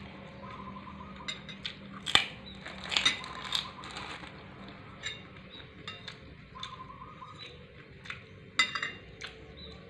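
Metal cutlery clinking and scraping against a plate while eating: irregular sharp clinks, the loudest about two and three seconds in and again near the end.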